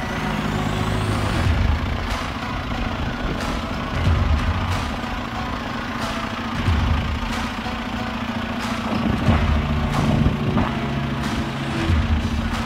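John Deere 6115M tractor's diesel engine running at a steady idle.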